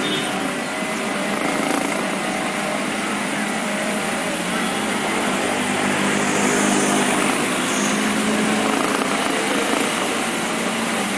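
Diesel bus engine running as the bus drives through floodwater, heard from inside the bus: a low engine hum under a steady rushing noise, swelling a little around the middle.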